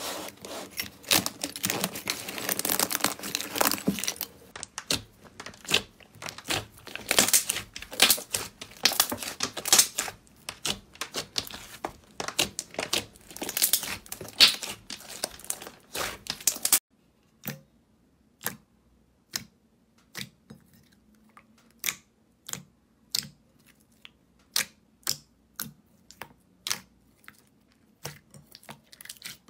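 Slime squished by hands: dense crunchy crackling and crinkling as the dried, cracked crust of iceberg slime and other slime is pressed. About 17 seconds in, this gives way suddenly to separate sharp pops and clicks, roughly one a second, from glossy slime being pressed in a bowl.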